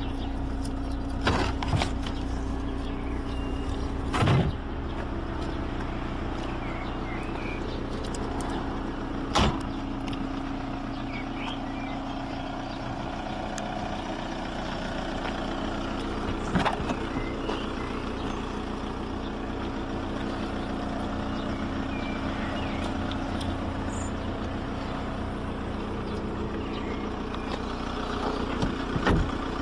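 Volkswagen Polo 1.9 SDI four-cylinder diesel engine idling steadily, with a few short knocks now and then, the loudest about four and nine seconds in.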